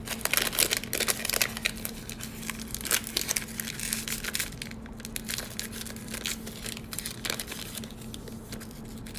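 A Topps Tribute baseball card pack's wrapper being opened slowly by hand: a run of small irregular crinkles and crackles with some tearing.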